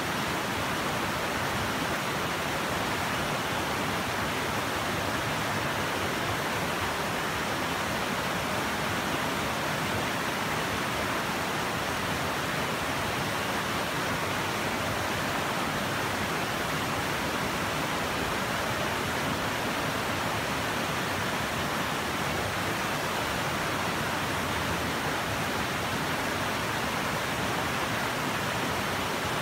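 A shallow, rocky river rushing over stones in rapids: a steady, even rush of water with no change.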